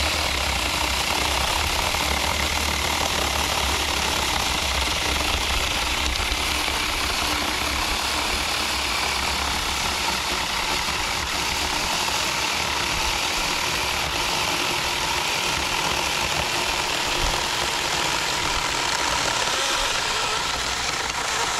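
Tingmengte 6-inch 24-volt cordless mini chainsaw running steadily under load, its chain cutting into an old, hard cedar trunk. The saw stops abruptly at the end.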